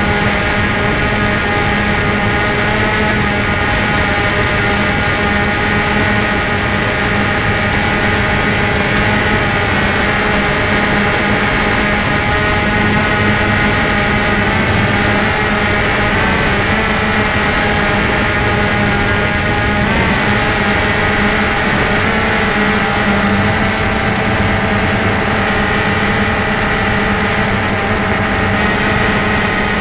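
DJI Phantom 2 quadcopter's four brushless motors and propellers whining steadily as it hovers and flies, heard from the camera on board. The pitch wavers slightly around the middle as the motors change speed.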